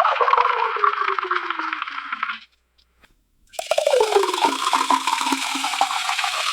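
Soda being poured, fizzing, in two pours: the first stops about two and a half seconds in, and after a second's silence a second pour starts. In each pour a low tone falls steadily under the fizz.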